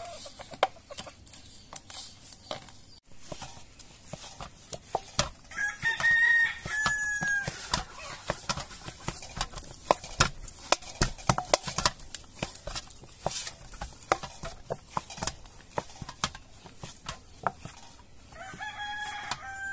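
A rooster crows twice, about six seconds in and again near the end. Under the crows run irregular slaps and knocks from flour dough being kneaded by hand in a stainless steel bowl.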